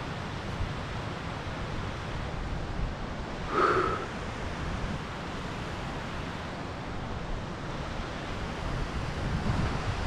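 Wind blowing on the microphone: a steady rushing noise with low buffeting. One short, louder pitched sound stands out about three and a half seconds in.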